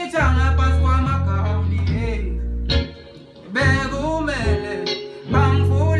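A man singing into a studio microphone over a keyboard-programmed beat with deep sustained bass notes; the music drops out briefly about three seconds in, then comes back.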